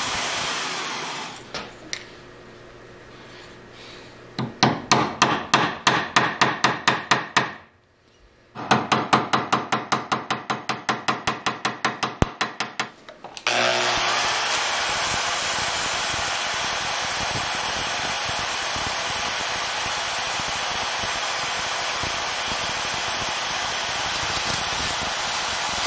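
A small hammer tapping rapidly on a small brass wedge held in a steel bench vise, about four or five light metallic taps a second, in two runs with a brief pause between. A steady machine noise then starts about thirteen seconds in and carries on.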